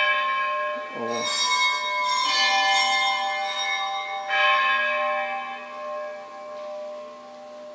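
Church bells ringing, the church's half-hourly peal: several bells struck in turn over the first four or five seconds, their tones hanging on and slowly fading toward the end.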